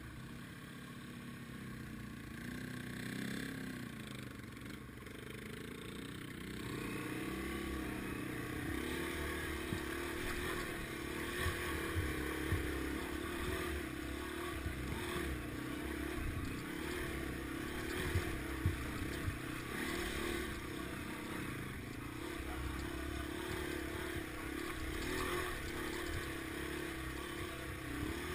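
Yamaha TW200's single-cylinder four-stroke engine running at low trail speed, its note rising and dipping with the throttle and growing louder over the first several seconds as the bike climbs. A few sharp knocks as the bike bumps over rock.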